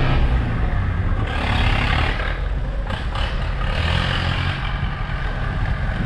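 Perkins diesel engine of a 1981 Chevrolet D10 pickup running, with a deep low rumble, swelling twice.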